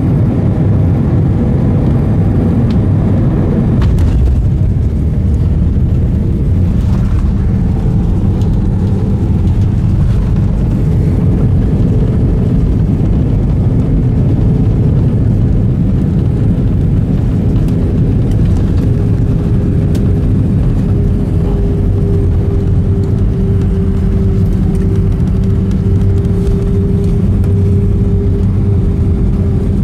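Airbus A320 cabin noise: a steady, loud rumble of engines and airflow. A humming tone rides on it, drifting slightly lower in pitch and growing plainer in the second half.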